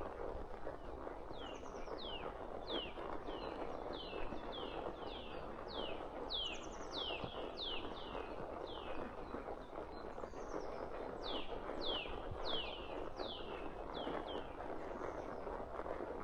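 Birds calling in a steady run of short, high notes that each slide downward, about two a second, over a constant low rustling hiss.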